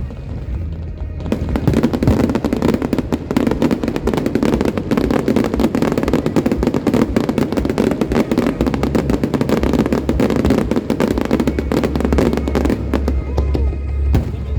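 Dense fireworks barrage, with rapid crackling bursts coming almost continuously from about a second in until near the end. Music with a steady low bass plays underneath.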